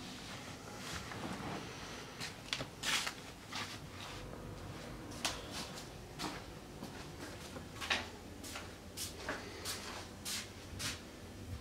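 Small household handling sounds of someone moving about a kitchen: irregular soft clicks, knocks and rustles, like cupboards, drawers and objects being handled, over a low room hum.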